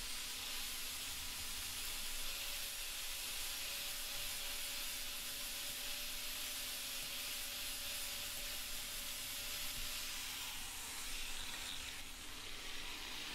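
Angle grinder with a flap disc grinding a weld on a steel handle: a steady hiss of abrasive on metal with a faint motor whine, easing off near the end. It is blending the welded joint into the surrounding steel.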